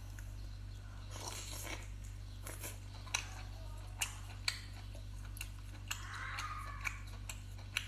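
Close-miked eating sounds from a garlic Boston lobster being picked apart by hand and chewed: a soft rustle of shell and meat being pulled apart about a second in, then a series of sharp clicks and smacks. A steady low hum lies underneath.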